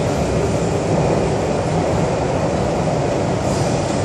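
MTR South Island Line S-Train running steadily between stations, heard inside the passenger car as an even rumble of wheels and running gear. A faint higher hiss begins to rise near the end.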